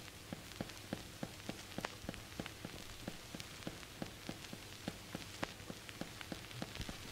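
Turntable stylus riding a spinning vinyl record: irregular crackle and pops, a few a second, over a quiet steady surface hiss and low hum.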